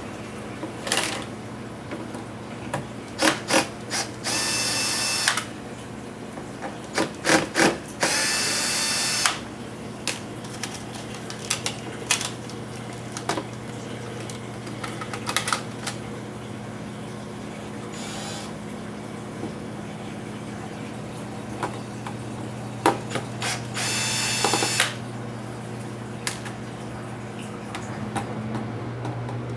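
Power screwdriver running in three short spurts of about a second each, backing screws out of a laptop case. Between them come sharp clicks and taps of small screws, plastic parts and tools being handled. A steady low hum runs underneath.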